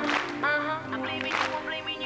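R&B-pop song playing: a bending, voice-like melody line over bass notes and drum hits about once a second.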